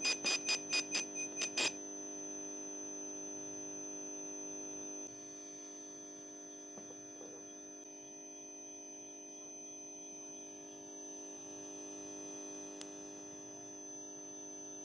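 Electronic tone from a pocket FM radio's speaker as it receives a homemade transmitter built from an old TV tuner: a rapid beeping, about three or four pulses a second, that stops after a second or two and leaves a steady electronic hum of several held tones.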